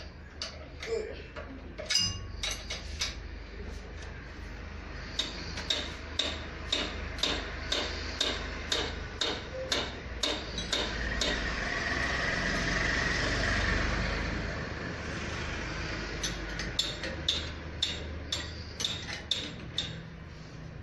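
Repeated sharp metallic taps or clicks, about two a second, from hand tools working on ceiling fan parts, over a steady low hum. A hissing swell rises and falls midway through.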